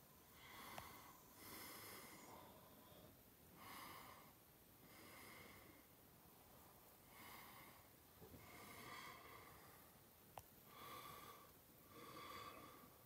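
Faint, slow, regular breathing of a person close to the microphone, a soft breath sound about every second and a half, with a sharp click near the end.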